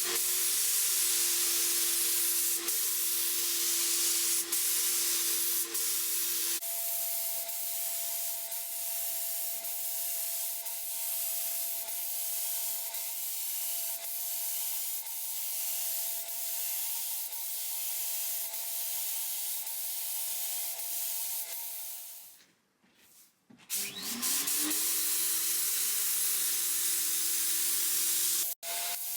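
Electric power sander running on wood: a steady motor hum under a dry hiss. The hum's pitch changes abruptly between edited clips, and there is a brief drop to near silence about three quarters of the way through.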